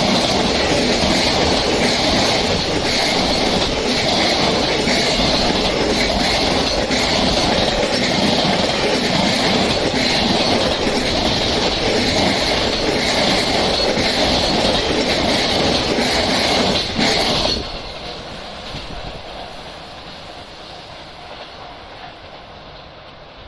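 A long freight train passing close by, its wheels clattering over the rail joints with some wheel squeal. About seventeen seconds in the noise drops off sharply as the last wagon goes by, leaving a fading rumble.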